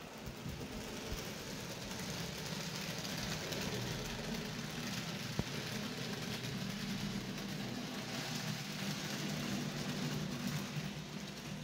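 N-scale model train running on the layout: a steady hum and whir from its small electric motor and wheels on the track. A single sharp click about halfway through.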